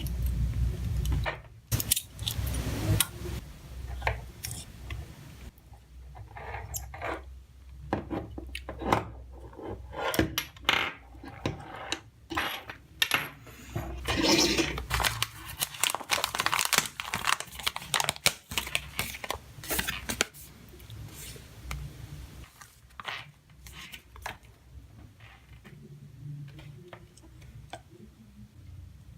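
Irregular clicks, taps and short scrapes of small tools, screws and plastic parts being handled while a DJI Phantom 3 Pro gimbal is taken apart. The handling is busiest for the first two-thirds and thins out near the end.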